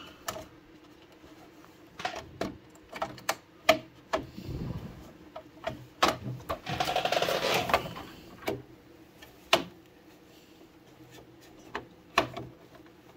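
Plastic front cover of a Huanyang GT VFD being handled and pressed shut: scattered clicks and knocks, with a short rattling stretch about seven seconds in.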